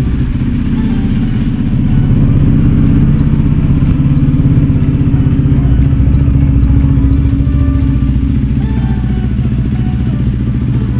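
KTM RC 390's single-cylinder engine idling steadily just after its first start in eleven months of storage, left unrevved so the oil circulates; it gets a little louder about two seconds in.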